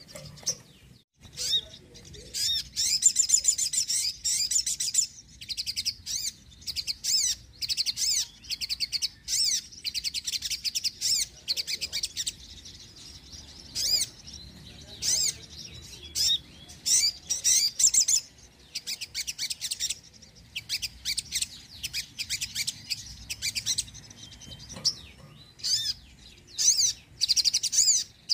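A sunbird (the 'sogon' of Indonesian bird-keepers) singing in a long run of high, rapid chattering trills and chirps, in bursts of one to two seconds with short pauses between.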